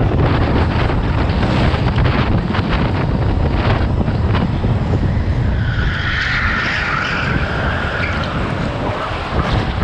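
Go-kart running at speed on an indoor track, with wind buffeting the onboard microphone. Tires squeal through a corner from about halfway in for a few seconds.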